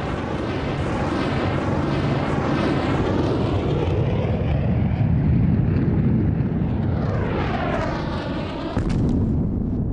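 Anti-tank missile fired from an Apache helicopter: the rocket motor's rushing roar, sweeping in pitch as the missile flies away, with a heavier low boom of the impact near the end.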